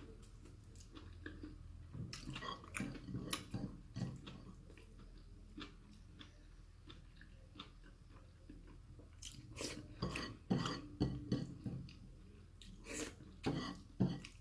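A person chewing and biting food close to the microphone, with wet mouth clicks; the chewing comes in bouts, with a quieter stretch in the middle.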